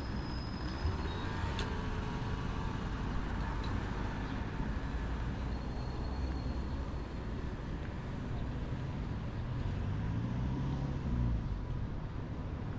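Road traffic: a steady rumble of passing vehicles, with one vehicle's engine rising and falling as it passes about ten seconds in.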